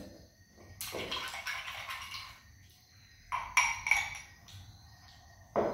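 Mealtime table sounds: dishes and utensils being handled, with scattered clatter and rustling and a sharp knock near the end.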